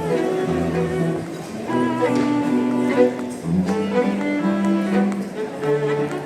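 Instrumental music of slow, held notes in low and middle pitches, each note sustained for about half a second to a second before the next.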